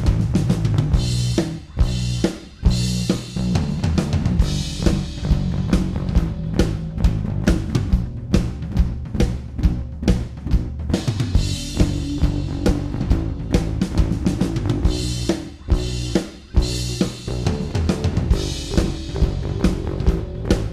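Recorded drum kit and bass playing a busy groove: kick, snare and cymbal hits in a steady beat over held low bass notes, with two brief dips in loudness, about two seconds in and near sixteen seconds.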